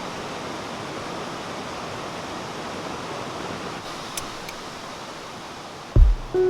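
Valley stream water rushing steadily. Near the end, music comes in with a low thump.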